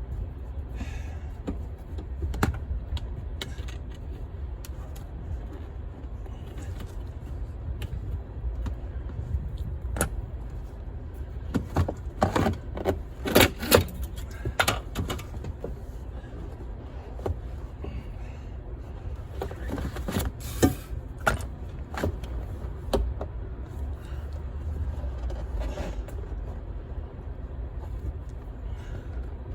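Scattered knocks, clicks and clatters of car parts being handled and pulled loose, with a cluster of louder knocks about twelve to fifteen seconds in and another around twenty seconds, over a steady low rumble.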